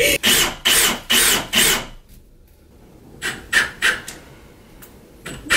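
Hand strokes rasping back and forth on wood: a quick run of strong strokes, about two or three a second, then a pause and a few lighter strokes.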